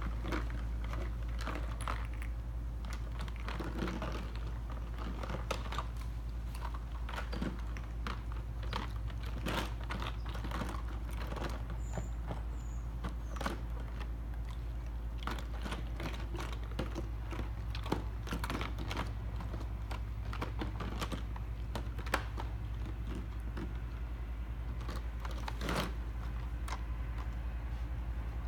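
Siberian huskies chewing and licking ice cubes in a plastic kiddie pool: irregular crunching and clicking of ice, over a steady low hum.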